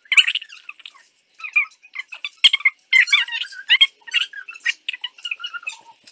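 Sticky flour-and-dishwashing-liquid dough squelching and squeaking between bare hands as it is kneaded, in quick irregular squishes with short pauses.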